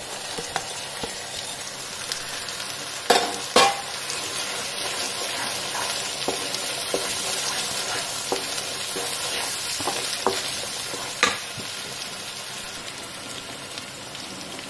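Masala paste and green peas sizzling in oil in a pan while being stirred, with a spoon scraping and knocking against the pan: two sharp knocks about three seconds in and another about eleven seconds in.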